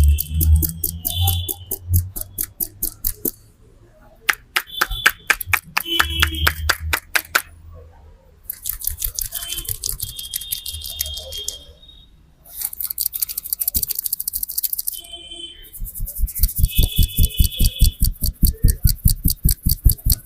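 A barber's hands tapping and chopping rapidly during a head massage, in bursts of about nine quick strikes a second with short pauses between. The last burst lands heavier, with a dull thud in each strike.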